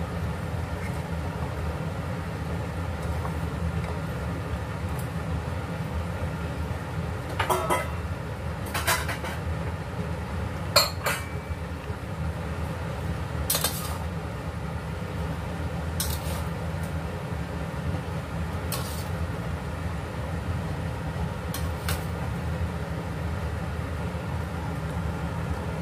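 A metal spatula and a metal bowl clink against a stainless steel frying pan as vegetables are stir-fried. About nine sharp clinks come at uneven intervals over a steady low hum.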